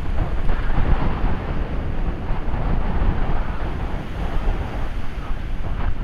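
Sea waves breaking and washing up a sandy beach, their hiss swelling and easing with each wash, under a steady low rumble of wind buffeting the microphone.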